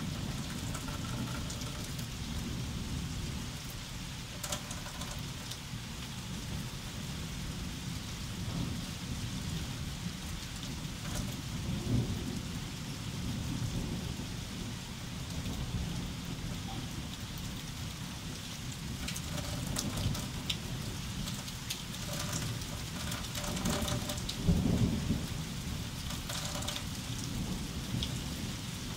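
Thunderstorm wind blowing in gusts with moderate rain falling: a steady low rumble under the hiss of rain and scattered ticking drops. The gusts swell about twelve seconds in and again near twenty-five seconds.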